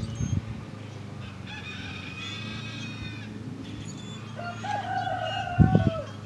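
A rooster crowing once, a long call of about a second and a half that steps up in pitch and holds before dropping, starting a little past the middle. A fainter, higher drawn-out call comes earlier, about two seconds in, and a couple of low thumps sound as the crow ends.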